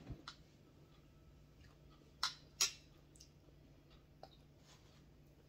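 Quiet eating sounds: a handful of short, sharp clicks and smacks of mouth and spoon, the two loudest close together about two and a half seconds in, over a faint steady hum.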